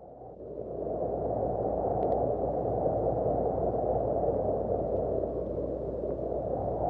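A low, muffled rushing noise that fades in over the first second and then holds steady, with two faint clicks, making up the sound bed of a channel logo intro.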